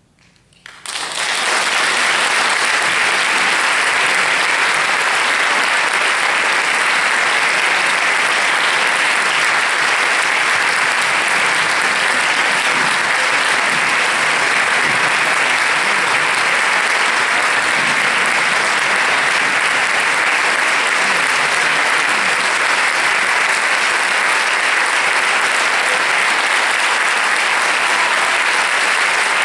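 Concert audience applauding, starting sharply about a second in and then holding steady and full.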